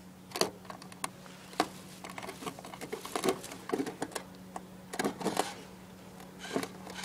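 Handling noise: irregular light clicks and taps, a few each second, over a faint steady hum.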